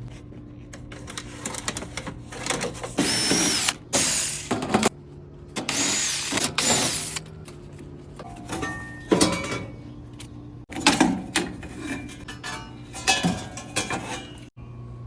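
Cordless power drill/driver running in bursts while turning screws: two longer runs of about a second and a half, then several short spurts, with a motor whine that rises and falls in pitch.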